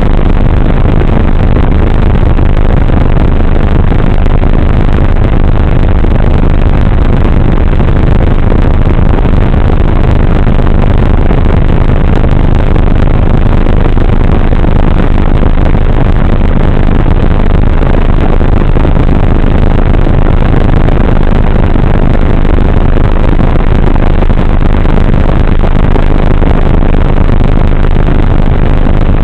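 Loud, steady rushing noise from the onboard camera microphone of a radio-controlled plane in flight: wind and propeller-motor noise, distorted and muffled above the midrange, with no change in pitch.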